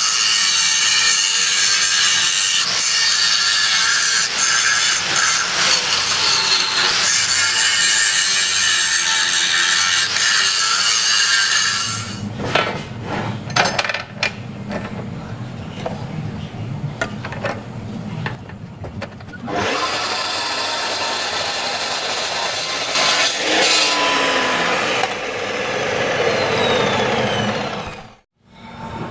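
Angle grinder grinding steel, a loud high-pitched whine that stops about twelve seconds in. A lower hum with scattered knocks follows, and the grinding comes back for a few seconds later on.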